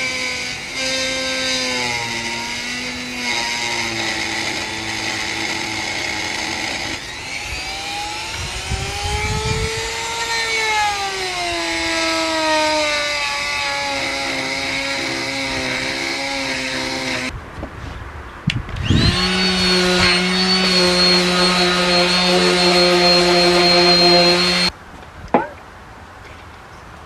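An electric power tool running, its motor pitch sagging and recovering as it is worked against the piece. Later it runs freely at a steady pitch for about five seconds and then cuts off suddenly.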